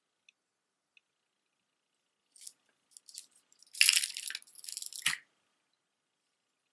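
Chunky necklace of flat stone disc beads clattering and rustling as it is handled and set down. A few light clacks come first, then a dense clatter about a second long, ending in a soft thump.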